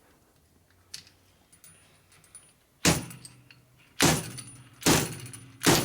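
Fork seal driver striking down on a motorcycle fork leg to seat the oil seal in the fork slider: four sharp metallic strikes about a second apart, each ringing briefly, the seal going in hard.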